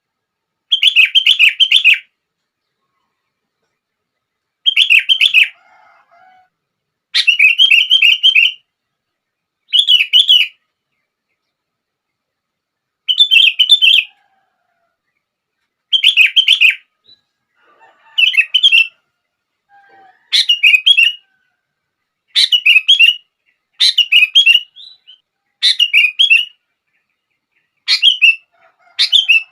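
Sooty-headed bulbul (kutilang) song: about a dozen short, bubbly whistled phrases, each about a second long, separated by pauses of one to two seconds.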